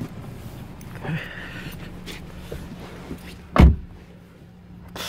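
A 2011 Hyundai Sonata's door shut with a single heavy thump about three and a half seconds in, over a steady low hum, with handling rustles around it and a short swish near the end.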